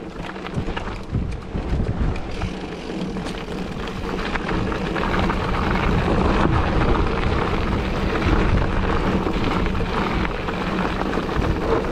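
Wind rushing over the microphone along with the rumble and rattle of a mountain bike riding a rough desert trail, getting louder a few seconds in.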